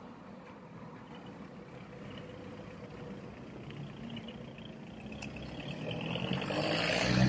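Street traffic: a car approaches along the road, growing steadily louder over the last couple of seconds as it comes close.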